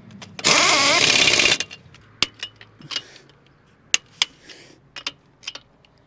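Pneumatic impact wrench hammering a wheel's lug nut on for about a second, then a series of sharp metallic clicks as the lug nuts are tightened by hand with a torque wrench.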